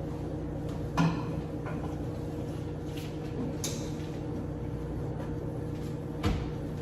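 Two sharp knocks about five seconds apart, with a short hiss between them, over a steady low hum: hard knocks from handling the microwave while it is wiped out with a towel.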